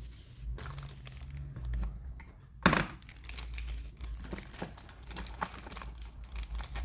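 Hands handling small plastic parts: irregular crinkling and rustling, with one sharp click about two and a half seconds in.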